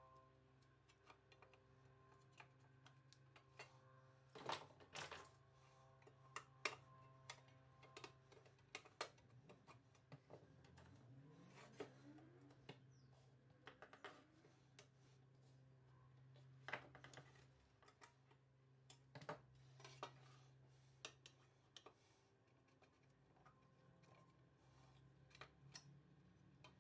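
Metal scraper scraping and chipping old paint off the sheet-metal housing of an antique kitchen scale, with scattered clicks, short scrapes and knocks of the metal parts on a wooden workbench over a low steady hum.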